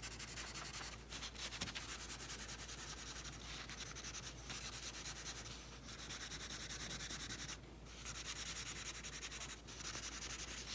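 Wax crayon scratching back and forth on paper in rapid short strokes, shading in a broad area. A few short breaks interrupt it, the longest about two-thirds of the way in.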